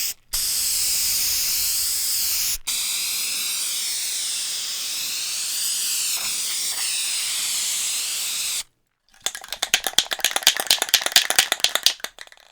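Aerosol spray paint can spraying in long, steady hisses, with two brief let-offs of the nozzle early on. Then, after a short pause, the can is shaken for about three seconds and its mixing ball rattles rapidly inside.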